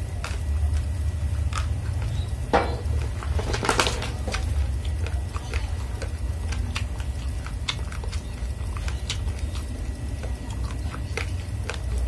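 Raw red rice grains crunching between the teeth as they are chewed: many small, sharp crackles scattered irregularly. A metal spoon digs and scrapes into the heap of dry grains on the plate, louder a few seconds in.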